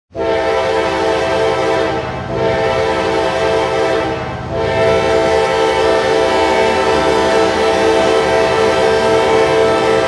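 Hockey goal horn, a multi-note air horn sounding a steady chord: three blasts, the first two about two seconds each and the third held long.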